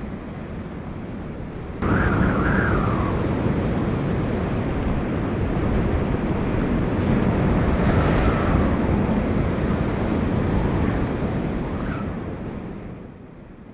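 Hurricane-force wind with driving rain, a dense rushing noise that buffets the microphone. It jumps louder about two seconds in, and a high wavering howl rises over it a few times before the sound fades near the end.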